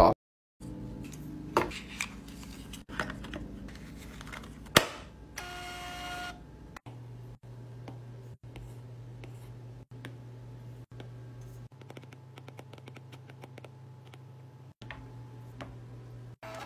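A stylus tapping on a tablet's glass screen, a run of light, irregular clicks. A short beep sounds about five and a half seconds in, and a low steady hum starts about a second later and runs under the taps.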